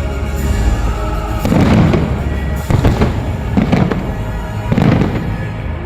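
Fireworks display: shells bursting one after another, about four booming bursts with crackling tails over a steady low rumble.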